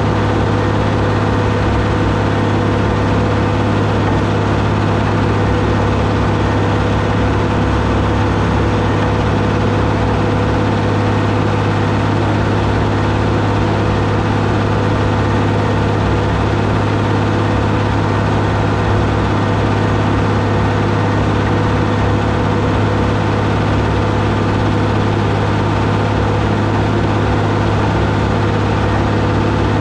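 Deutz D130 06 tractor's diesel engine running at a steady, unchanging speed while it works a John Deere 566 round baler.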